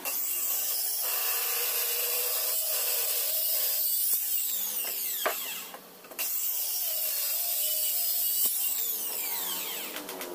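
Handheld electric circular saw ripping along the length of a wooden board. About five and a half seconds in the motor is switched off and winds down with a falling whine, then starts again and cuts on, winding down once more near the end.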